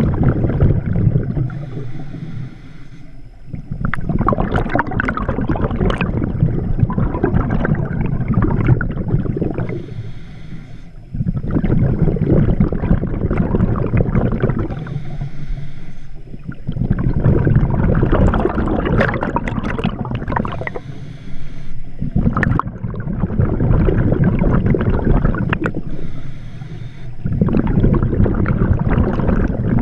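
A scuba diver's breathing through the regulator, heard underwater: a rough rush of exhaled bubbles comes in long bursts every five or six seconds, with short quieter gaps between breaths.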